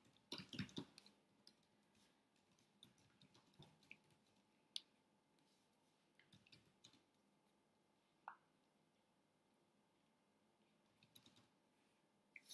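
Near silence in a small room, broken by faint scattered clicks and taps from a person's hands and mouth while signing. There is a cluster of small clicks just after the start, a sharp single click in the middle, and a few more clicks near the end.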